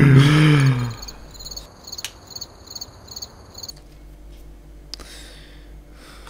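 Crickets chirping in a rapid, even pulse, the chirps stopping a little past halfway through. A voice trails off in the first second.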